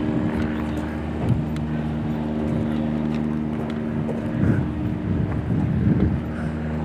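An engine idling steadily with an even low hum that drops out briefly a little past halfway and then comes back.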